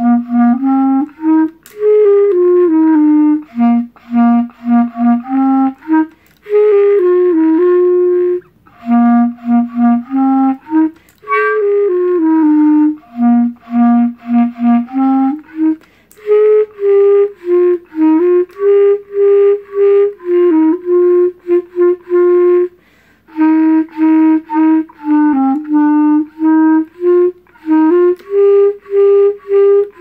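Solo clarinet playing a melody of short, often repeated notes, in phrases separated by brief pauses.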